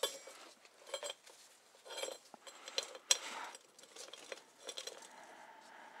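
Old, worn steel roller chain being handled and laid over a toothed drive sprocket, its links clinking and rattling irregularly, the loudest rattle about halfway through.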